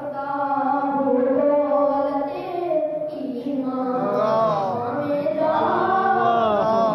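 A boy's voice singing a manqabat, an Urdu devotional praise poem, unaccompanied, with long held notes that give way to wavering, ornamented notes about four seconds in.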